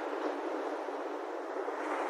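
Ocean waves washing in as a steady rush of surf, swelling slightly near the end.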